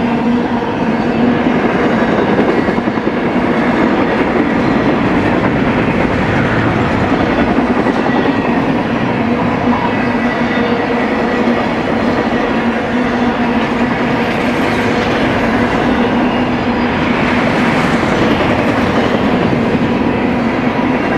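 Double-stack intermodal freight train's well cars rolling past: the steady rumble of steel wheels running on the rails, with a constant humming ring from the wheels and rail.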